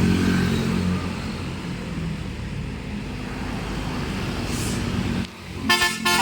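Bus engine running with road and traffic noise, a steady low drone. After a brief drop about five seconds in, the multi-tone Basuri telolet horn starts playing its musical notes.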